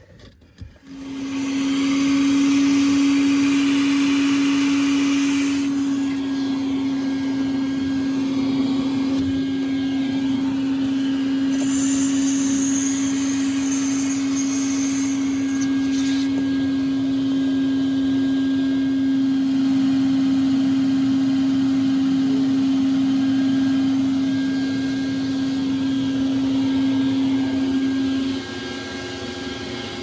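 Wet/dry shop vacuum switched on about a second in and running steadily, sucking out a condensing furnace's condensate trap and drain lines. The hiss of its suction changes about six seconds in, a thin high whistle joins it for a few seconds near the middle, and its sound drops sharply about two seconds before the end.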